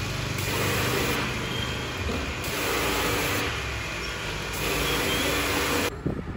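Pressure washer running: its pump hums steadily under the hiss of the water jet, the level shifting every second or so. It stops abruptly near the end.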